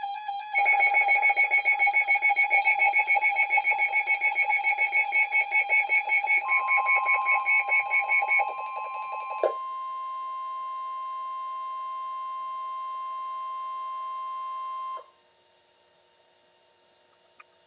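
NOAA weather radio receivers sounding their alert: rapid pulsing electronic beeps at two pitches. About six seconds in, the steady 1050 Hz Warning Alarm Tone starts. It carries on alone after the beeping stops and cuts off suddenly about fifteen seconds in, leaving a faint hum.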